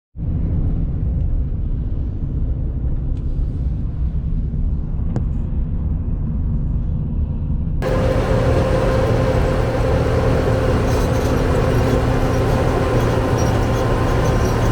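A large engine running steadily with a low rumble; about eight seconds in the sound changes abruptly to a louder, brighter mechanical din with a steady whine.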